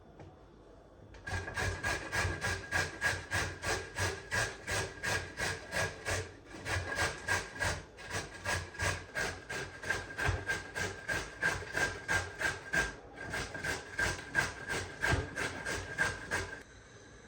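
Rhythmic back-and-forth scrubbing, about three strokes a second. It starts about a second in, pauses briefly twice and stops shortly before the end.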